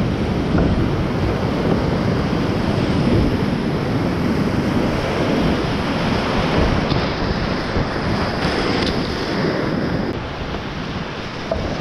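Loud, steady rush of whitewater rapids around a kayak running a steep creek drop, easing slightly about ten seconds in.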